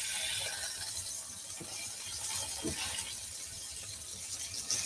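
Chicken and haloumi burger patties sizzling in a frying pan, a steady crackling hiss, with a couple of short knocks of a spatula against the pan.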